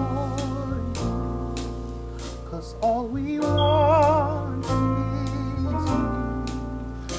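Gospel worship song performed by singers over piano, bass guitar and drums. Voices hold long notes with vibrato above a steady drum beat and low bass notes that move every second or so.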